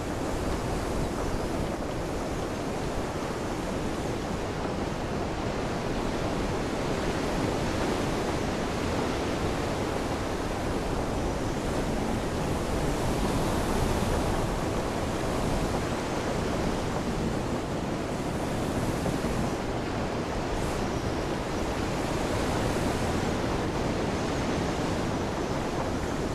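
Steady rush of ocean waves and wind, swelling and easing slowly.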